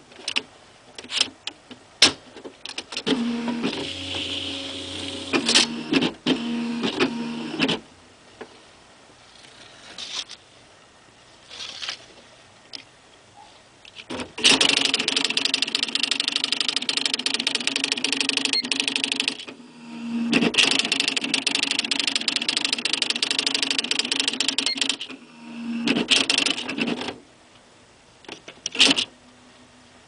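1987 Smith Corona XD 8500 electronic typewriter printing its built-in demonstration text: bursts of very rapid, even print strikes, the longest about five seconds, over a low motor hum. Single clicks of the carriage and paper feed fall between the bursts, with quieter gaps between the printed lines.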